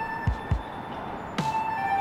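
Background music: held synth-like notes over a beat of deep kick-drum thumps that drop in pitch.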